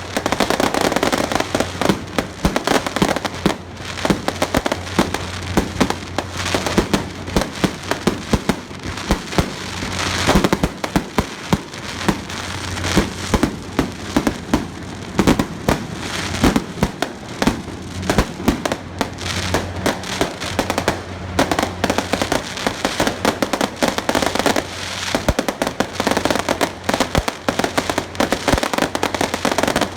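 Firecrackers going off in a dense, unbroken barrage of rapid sharp cracks and bangs, the loud ceremonial firecracker salute set off for a Taiwanese temple procession.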